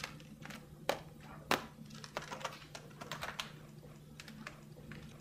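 Steel razor wire clicking and scraping against the hard guard plates of a HexArmor SuperFabric glove as it is handled: a run of irregular sharp ticks, two louder clicks about one and one and a half seconds in, over a faint steady low hum.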